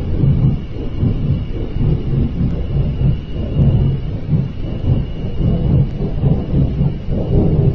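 A loud, continuous low rumbling roar that wavers in strength, of unknown origin; it sounds like a giant flame.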